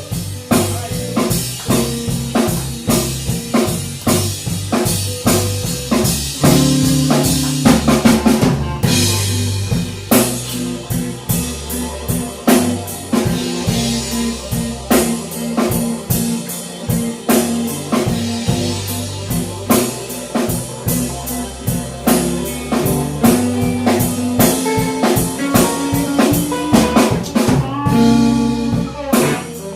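Live blues band playing a slow blues instrumental passage without vocals: a drum kit with snare and bass-drum hits, an electric bass and electric guitar, with held guitar notes that bend near the end.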